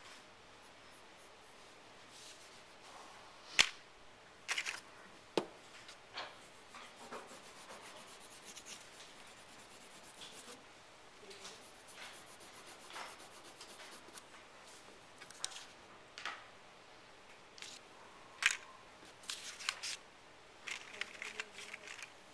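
Quick scratchy strokes of a drawing tool shading on paper, coming in irregular spurts, with a few sharp clicks; the two loudest clicks come about three and a half seconds in and about eighteen seconds in.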